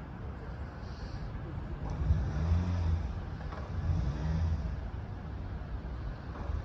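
A car driving past, its engine swelling to its loudest in the middle and then fading, over steady street background noise.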